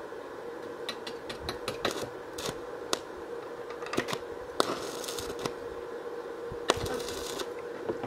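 Stick (MMA) welding: the coated electrode is struck against the steel tubing, and the arc catches in short spells, giving many sharp crackles and pops and two brief hissing runs, over a steady hum.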